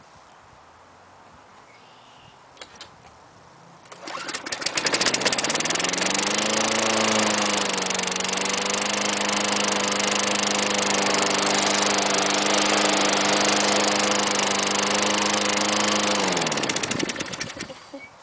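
Lawn-Boy 10360C's 5 hp Tecumseh four-stroke engine cold-started by pull cord: it catches about four seconds in, revs up and runs steadily for about ten seconds, then winds down to a stop. It starts readily, a sign the little-used engine is in good order.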